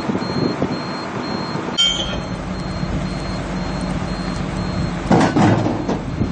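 A vehicle engine running steadily, with a louder rushing noise lasting about a second near the end.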